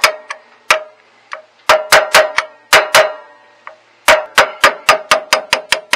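Hammer striking a steel pin punch to drive a roll pin out of a garden tractor's front spindle: sharp metallic clinks with a short ring after each blow. They come in short groups, then a quick run of about five blows a second near the end.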